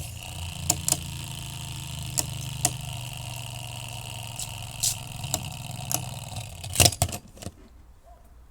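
A Beyblade spinning top whirring after its launch, a steady low hum with a thin high whine, broken by scattered sharp clicks. Near the end a few loud clacks come and the spinning sound stops.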